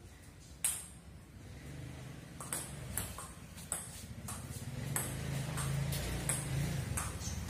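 Table tennis rally: the celluloid-type ball clicking off paddles and bouncing on the table, a sharp click every half second to a second. A low hum grows louder in the background around the middle.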